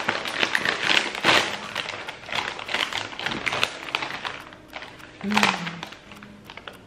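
Crinkling and crackling of a foil-lined Red Rock Deli chip packet being opened and rummaged through by hand. The crackly rustles are dense for the first few seconds and thin out after; a short 'mm' comes near the end.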